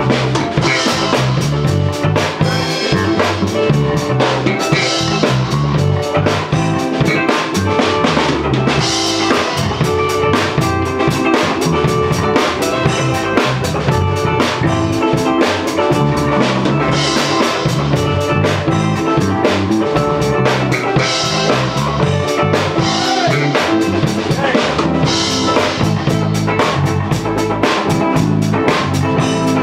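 A PDP drum kit and an electric bass guitar jamming together: a steady drum beat of kick, snare and cymbals with the bass playing a changing line underneath.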